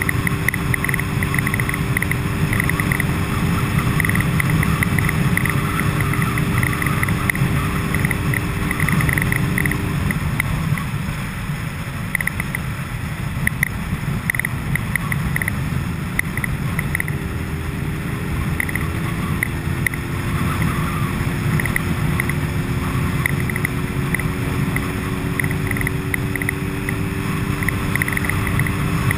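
A vehicle running with a steady low rumble and a hum that fades out partway through, then returns slowly rising in pitch, over short high-pitched chirps that come and go.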